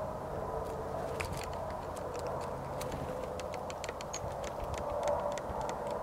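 Rapid, irregular ticking taps, about five a second for a few seconds, of a small bird pecking at seed at a hanging bird feeder, with a couple of faint high peeps, over a steady low outdoor hum.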